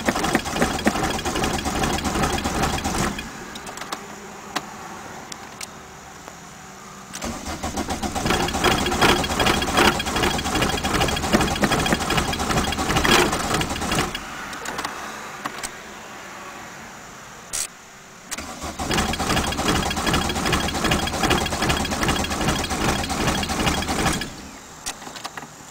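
1981 Volkswagen Rabbit diesel being cranked on the starter in three long bursts with pauses between, the engine not catching. The car has sat unused for about four months.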